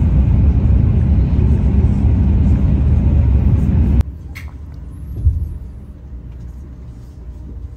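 Haramain high-speed train running at speed, heard inside the cabin as a loud, steady low rumble. About four seconds in it cuts off abruptly to a much quieter hum, with a brief thump about a second later.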